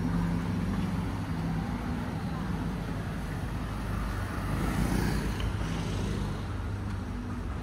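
Street traffic: a steady low rumble of engines and tyres, with a vehicle passing close about five seconds in.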